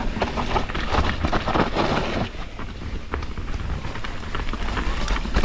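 Mountain bike descending a dirt trail: tyres rolling and scrubbing over wet soil, the bike's chain and frame rattling over bumps, and wind rushing over the camera mic. The rattling and tyre noise is busiest and loudest during the first two seconds.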